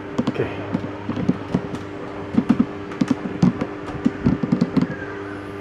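A run of irregular clicks and light knocks, a few a second and loudest about halfway through, over a steady low hum.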